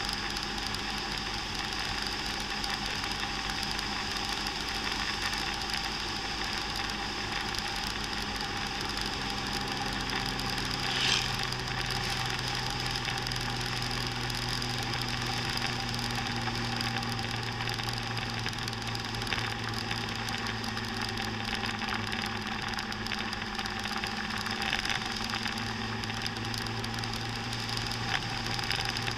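Motor scooter engine running steadily at cruising speed, mixed with a constant rush of wind and road noise. The engine note changes about nine seconds in, and a short sharp click stands out about eleven seconds in.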